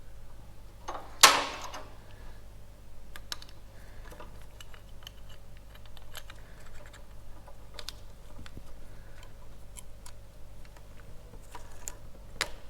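Small metal motorcycle brake parts and hand tools being handled, giving irregular light clicks and clinks, with one loud clack about a second in. A faint steady hum runs underneath.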